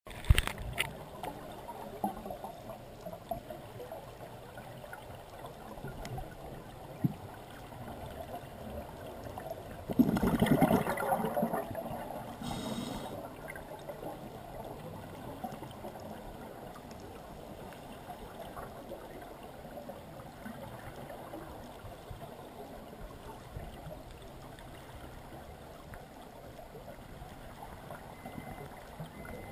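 Underwater ambient noise picked up by a camera in its housing while diving: a steady watery hiss with a few faint clicks. About ten seconds in comes a loud burst of bubbling that lasts about two seconds.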